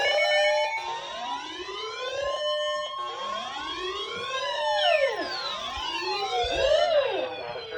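Several electronic siren tones wailing up and down at the same time, crossing one another, over a few steady alarm tones.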